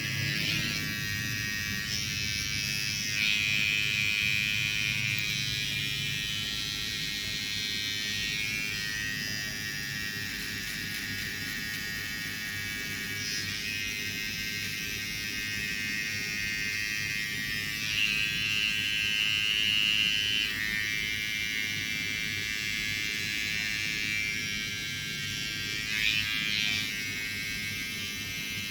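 Electric hair clippers buzzing steadily while cutting hair, the sound brightening and getting louder for a few seconds around three points as the blade works through the hair.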